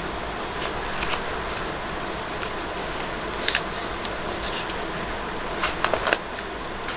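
Steady hiss of room and camera noise, broken by short clicks and rustles from album pages being handled and turned, once about halfway through and in a quick cluster near the end.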